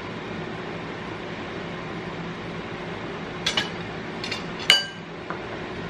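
Steady room hum, then metal spoons clinking against ceramic bowls a few times in the second half, one strike ringing briefly.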